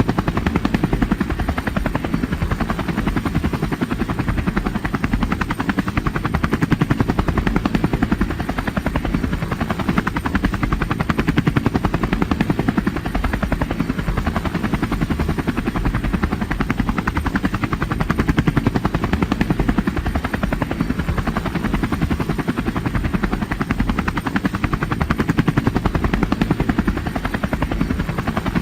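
Loud, steady mechanical drone with a rapid, even pulsing beat and strong low rumble, of the kind a helicopter's rotor and engine make.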